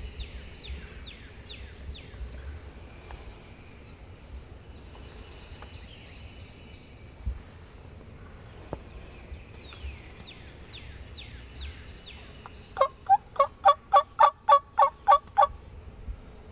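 Turkey calling near the end: a loud run of about eleven rapid notes, roughly four a second, over a quiet woodland background. Earlier, a songbird sings repeated falling whistled notes.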